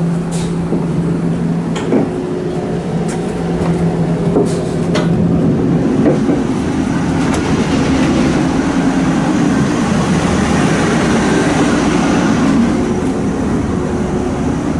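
Kintetsu 'Raku' electric train running on the rails, with a steady hum and a few sharp clicks from the track. The running noise grows louder and fuller about six seconds in.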